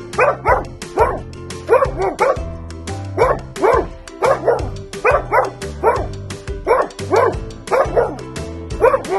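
A pug barking loudly and repeatedly, short barks often in quick pairs, about two a second, over background music.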